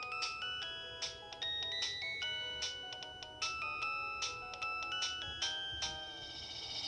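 Polyphonic ringtone from an LG TM125 mobile phone playing through its small speaker: a quick melody with several notes at a time over percussive ticks, stopping at the end.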